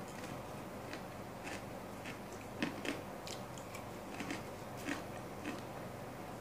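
A person chewing and biting fried food close to the microphone: a scatter of short crisp clicks and crunches, loudest a little under halfway through, over a steady low background hum.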